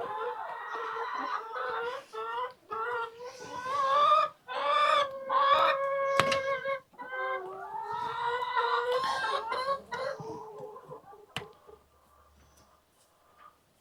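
Laying hens clucking and calling over one another, with one longer held call about five seconds in; the calls die away near the end.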